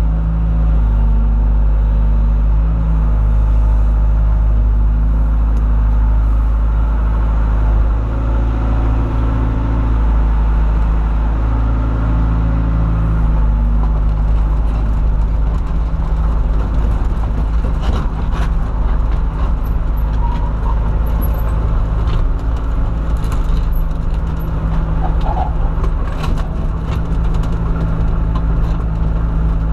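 John Deere 190E excavator's diesel engine running steadily, its note shifting a couple of times as the load changes. Scattered sharp knocks come in over it in the second half.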